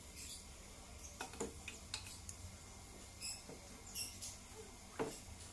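Scattered light clicks and knocks of steel engine parts being handled and set into an aluminium motorcycle crankcase, with one sharper knock about five seconds in. A few short high squeaky chirps sound between them, over a steady low hum.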